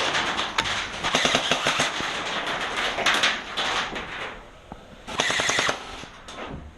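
Gel blasters firing in full-auto bursts: fast rattling trains of shots through the first few seconds, then another short burst about five seconds in.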